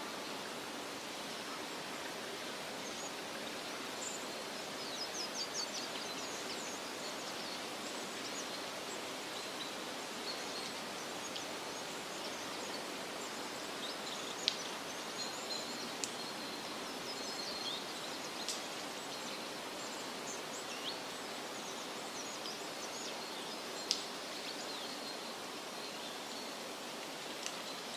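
Outdoor nature ambience: a steady even hiss with scattered short, high chirps and a few sharp ticks, including a quick run of chirps about five seconds in.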